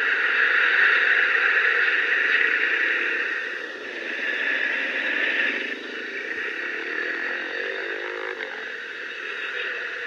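Road traffic and engine noise heard from a motor scooter riding in slow traffic, louder in the first half and then settling lower. Near the end a short engine note rises as a vehicle picks up speed.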